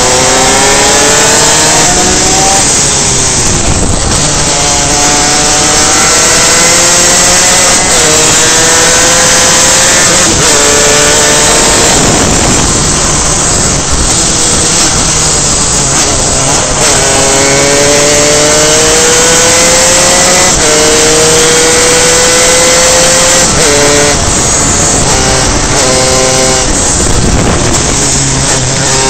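Reed-valve two-stroke superkart engine at full throttle, its pitch climbing steadily and then dropping sharply several times as it is shifted up through the gears, with loud wind rush over it.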